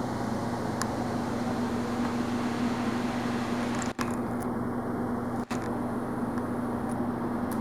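Steady background hum and hiss of room noise, broken by two very brief dropouts about four and five and a half seconds in.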